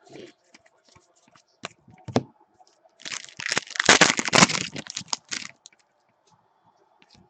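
Foil trading-card pack wrapper being torn open and crinkled, a dense crackling that lasts about two and a half seconds, after a few light taps of cards being handled.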